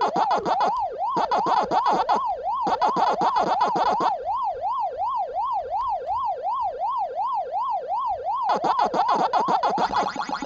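Electronic siren-like warble, a tone sweeping up and down about three times a second over a fast clicking beat. The beat drops out briefly about a second in, again after two seconds, and for most of the middle, then comes back near the end.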